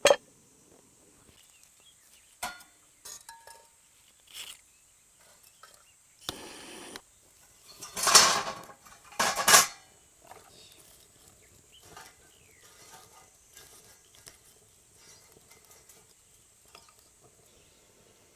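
Cookware and utensils being handled during food preparation: scattered clinks and knocks, with a short noisy scrape or pour about six seconds in and two louder bursts about eight and nine and a half seconds in.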